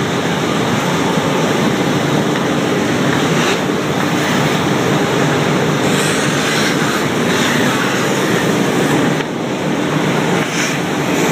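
Vacuum cleaner running with a loud, steady rushing noise. The noise dips briefly twice toward the end.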